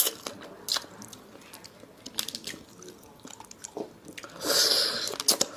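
Close-up eating sounds of cooked hermit crab being bitten and chewed: a few sharp clicks near the start, then quiet scattered chewing clicks, then a louder burst of mouth noise lasting about a second, about four and a half seconds in.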